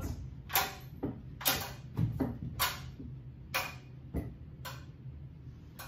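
About eight sharp knocks and clicks, irregularly spaced, as a wooden crosspiece with a hanging eye bolt and chain is pushed and tapped into place between two ceiling joists.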